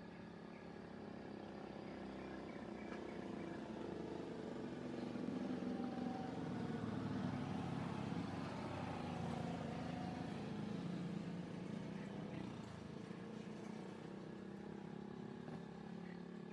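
A motor vehicle's engine running past, growing louder over a few seconds and then fading away.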